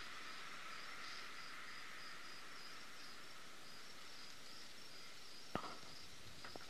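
Faint scratching of a pencil drawing on paper over a steady background hiss, with one sharp click about five and a half seconds in and a couple of smaller ones near the end.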